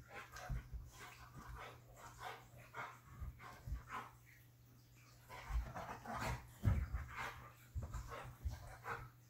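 Siberian husky making short, irregular play vocalizations, soft grumbles and whines, while wrestling a cat, with a few soft thumps. The sounds pause briefly in the middle and are loudest just after.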